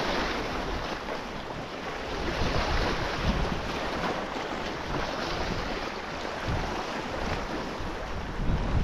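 Wind buffeting the microphone with rough surf washing in, a steady hiss over an uneven low rumble.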